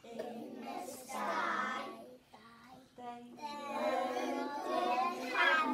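A group of young children singing together, with held notes and a short break about halfway through.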